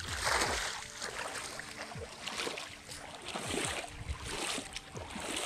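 Splashing as a cast net holding fish is pulled out of shallow water, followed by short scuffling and slapping sounds of the net and fish on wet sand. From about a second in, background music with steady held notes plays underneath.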